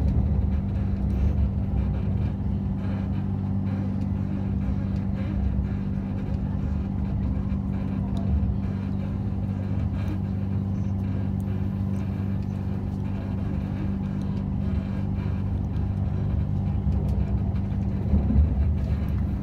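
Inside an Airport Rail Link electric train running along elevated track: a steady low rumble of the train in motion with a constant low hum underneath.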